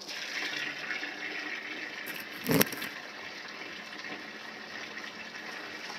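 Water running steadily from an outdoor pipe spout onto concrete, with a single thump about two and a half seconds in.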